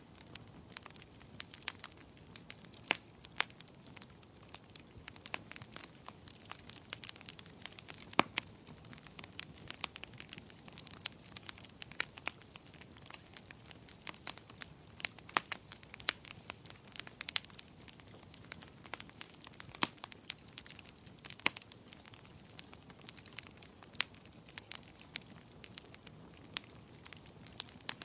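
Wood fire in a fireplace crackling: irregular sharp pops and snaps, several a second, over a steady low hiss of flames.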